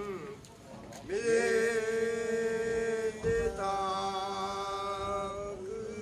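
Men's voices chanting in long drawn-out held notes, each note bending down as it ends. A new note comes in about a second in, and a slightly lower one follows about halfway through.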